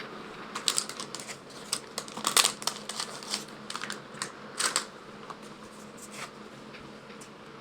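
Irregular clicks, snaps and rustles of a cardboard Pokémon promo box and its cards being handled and opened, crowded together in the first five seconds and then only now and then.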